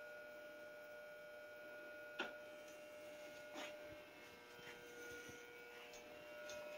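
Faint steady electrical hum from a switched-on Wurlitzer 1015 jukebox, with two soft clicks about two and three and a half seconds in.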